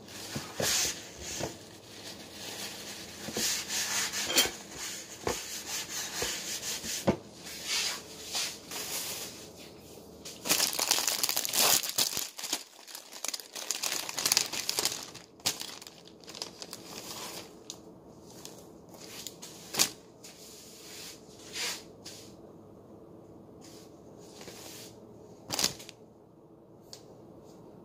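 Crinkling and rustling of wrapping being handled, in irregular bursts with sharp clicks. The longest, loudest stretch comes about ten to fourteen seconds in, and the rustling is sparser after that.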